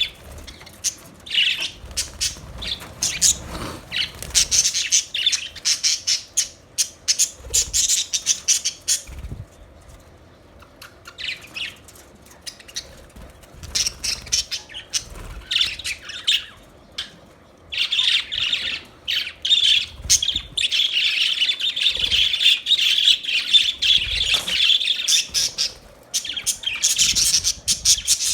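Budgerigars chirping and chattering in rapid, high-pitched bursts. The calls thin out for a few seconds near the middle, then swell into a dense, unbroken warble in the second half.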